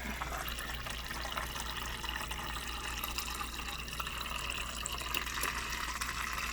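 Refrigerator water dispenser running into a plastic cup with irregular spits and hisses of air: trapped air purging from a newly installed water filter.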